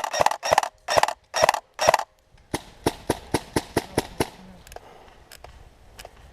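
Airsoft guns firing single shots. Sharp cracks come about two a second for the first two seconds. Then a quicker string of lighter shots follows at about five a second, thinning to scattered distant shots after about four seconds.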